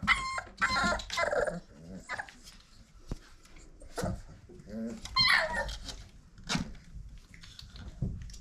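Five-week-old pit bull puppies giving high little barks and yips: a run of them in the first second and a half and another around five seconds in, with a few soft knocks between.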